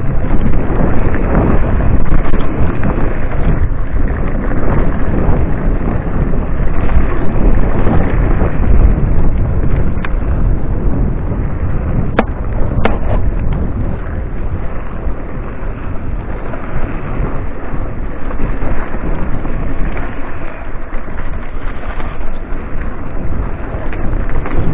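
Mountain bike riding over a dirt singletrack: wind rumble on the handlebar camera's microphone mixed with tyre noise and the bike rattling over the ground, with a few sharp clicks around the middle.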